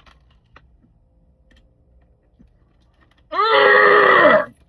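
A man's loud, drawn-out groan, falling in pitch and lasting just over a second, starting about three seconds in after a few faint clicks.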